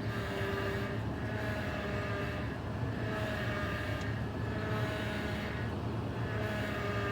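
Truck's power steering pump whining over the idling engine as the steering wheel is turned, the whine coming and going every second or two. The pump is low on power steering fluid, and topping up the fluid cured the whine.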